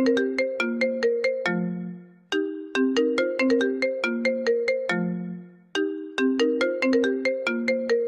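iPhone 11 Pro ringtone playing: a short melody of quick notes that ends on a long, fading low note, repeating about every three and a half seconds.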